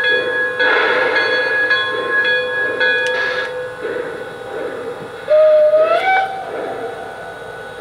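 Sound system of a Lionel Vision Line Pennsylvania CC2 0-8-8-0 model steam locomotive playing its chime whistle, the hooter, as a chord of steady tones, with bursts of steam hiss, for the first few seconds. About five seconds in, a short tone glides upward in pitch.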